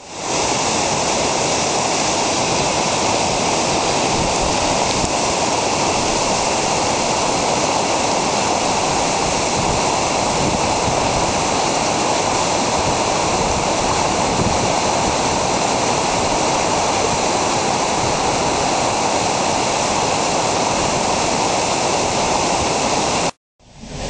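A swollen creek running high and fast over rapids: a steady, even rush of water that breaks off suddenly just before the end.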